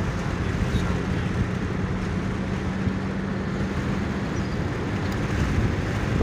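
Car driving along a desert road, heard from inside: steady road and wind noise with a low engine hum that fades about two-thirds of the way through.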